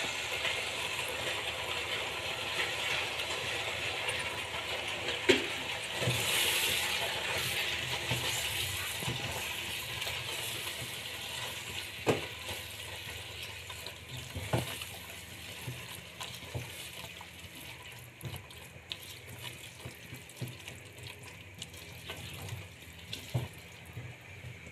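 Spatula stirring chopped spinach into a pot of hot kadhi, with a steady hiss from the pot that swells a few seconds in and then slowly fades. A few sharp knocks of the spatula against the pot stand out, with lighter scrapes and clicks between them.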